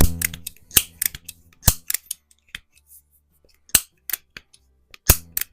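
A series of sharp metallic clicks and clacks, irregularly spaced, the first the loudest with a brief low ring, from handling the action of a Hawthorne M130 (Crosman 130) .22 multipump pellet pistol while it is readied for the next shot.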